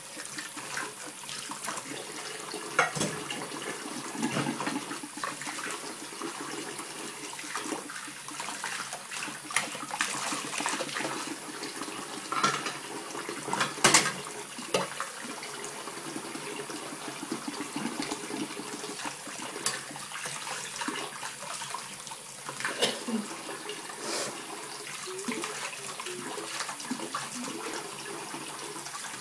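Kitchen tap running steadily into a metal saucepan in the sink, with scattered knocks and clinks of dishes, the loudest about halfway through.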